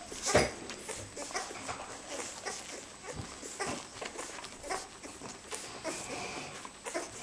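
A litter of two-week-old Welsh springer spaniel puppies nursing: many small irregular sucking and smacking clicks, with a short high squeak now and then.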